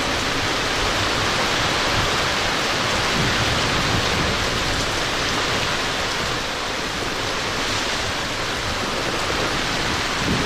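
Heavy rain pouring down on a sailing catamaran and the sea around it: a loud, steady hiss with no let-up.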